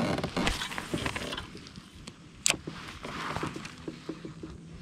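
Spinning reel being worked during a cast and retrieve: one sharp click about two and a half seconds in, then the reel handle cranked with a quick, even ticking.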